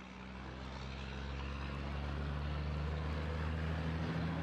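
Road traffic going by, led by the steady engine drone of a passing heavy truck, growing louder over the first couple of seconds and then holding.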